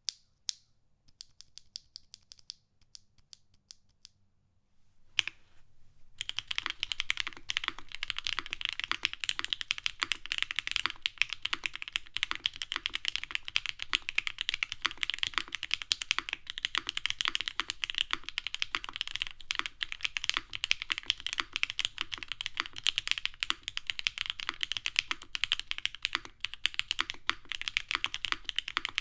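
Mechanical keyboard being typed on: a Mode Sonnet with lubed and filmed Gateron Milky Yellow linear switches on a polypropylene plate, no foam, and GMK keycaps. A few single keystrokes come first, then from about six seconds in, fast continuous typing.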